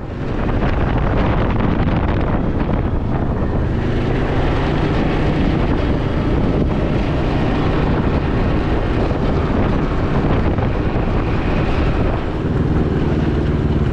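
Can-Am Ryker three-wheeled motorcycle running steadily on the move, its engine note mixed with heavy wind buffeting on the microphone. The level dips briefly about twelve seconds in.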